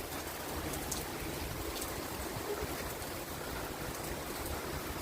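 Gusty wind from a hurricane's outer rain band: a steady rushing hiss with low wind rumble buffeting the microphone.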